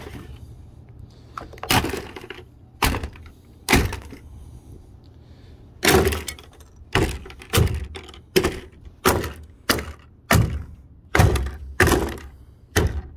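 A sledgehammer repeatedly smashing a plastic appliance housing against a wooden deck, with sharp cracking impacts. The first few blows come about a second apart, then from about halfway through a quick run of blows comes roughly every two-thirds of a second.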